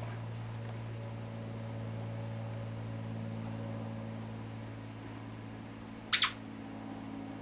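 A dog's plush squeaky toy squeaks sharply twice in quick succession about six seconds in, as the toy is squeezed and let go, over a steady low hum.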